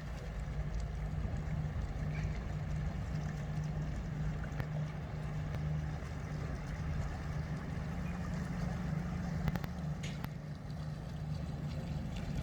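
A century-old, 1924-built inland ship's engine drones low and steady as it passes, quiet, as the vessel goes by almost without sound.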